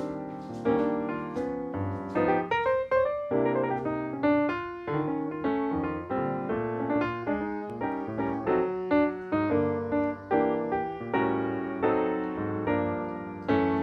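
Background piano music: a lively run of quick notes and chords, several a second, each sounding sharply and fading.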